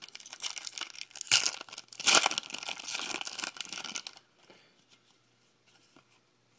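A foil trading-card pack being torn open by hand, its wrapper crinkling, with two louder rips about a second and a half and two seconds in. The tearing stops about four seconds in.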